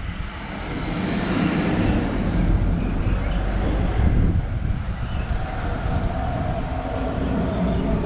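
A motor vehicle passing close by on the street, its rumble swelling about a second in and easing after about four seconds.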